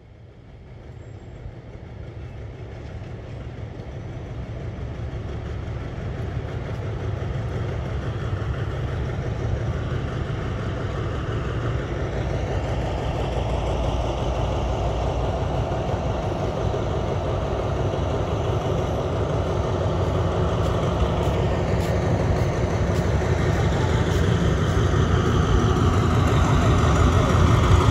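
Alsthom diesel-electric locomotive No. 4144's engine running as it hauls its train along the platform, a steady low drone that grows steadily louder as it draws nearer.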